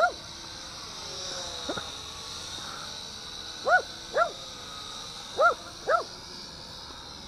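A dog barking: short, high barks, mostly in pairs a few seconds apart.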